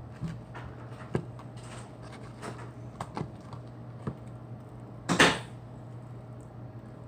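Scattered light clicks and taps of a utensil against a plastic container as slime is stirred, with one louder, brief scraping rustle about five seconds in. A low steady hum runs underneath.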